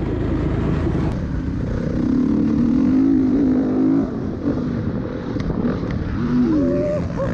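Four-stroke dirt bike engine being ridden hard, its pitch rising and falling with the throttle.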